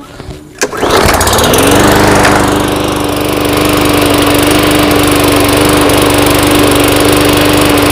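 Walk-behind lawn mower engine pull-started from cold: it catches about a second in, climbs quickly in pitch and settles into a steady, even run.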